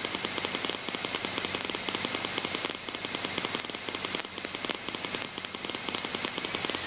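Aerobatic propeller plane's piston engine idling as it taxis, heard from inside the closed cockpit: a rapid, even pulsing under a steady hiss.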